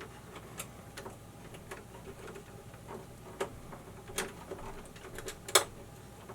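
Scattered small clicks and taps as copper ground wires are handled and pushed into a hole in an electrical subpanel's ground bus bar, the sharpest click a little over five seconds in.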